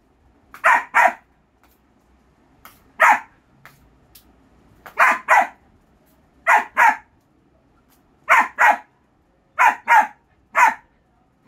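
German Shepherd puppy barking, about a dozen short barks, mostly in quick pairs with pauses of a second or more between them.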